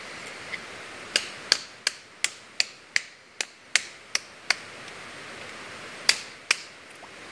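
Knife striking the hard, woody shell of a jatobá pod to crack it open: a run of about ten sharp knocks at roughly three a second, then two more a little later.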